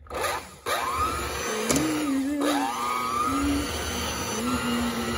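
Electric hand mixer starting up and beating butter, cream cheese and powdered sugar, cutting out for a moment just after it starts, then running with a whine that wavers up and down in pitch. The mixer is failing, and the owner says the cord must be held up to stop it doing that.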